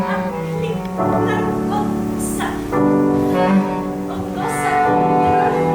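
Slow music of long held notes that change every second or two, with short hissy accents between them.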